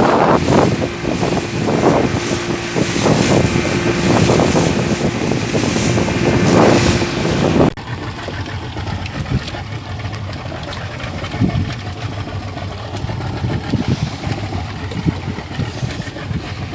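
Motorboat engine running under way, with wind gusting on the microphone. About eight seconds in the sound drops suddenly to a quieter, steady engine-and-water noise.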